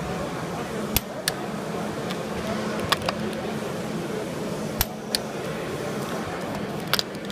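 Chicago Pneumatic CP8915 torque wrench clicking as each wheel nut reaches its set torque: four sharp double clicks, about two seconds apart. Behind them, a steady hubbub of voices in a hall.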